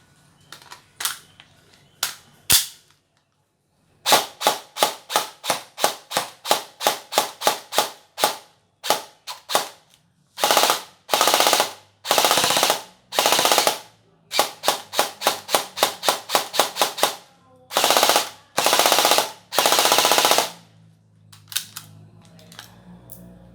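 Dboys KAC PDW airsoft electric gun (AEG) dry firing without BBs: its gearbox cycles in quick single shots, about three to four a second, broken by several short full-auto bursts. A few single clicks come first, then a pause of about a second before the firing starts.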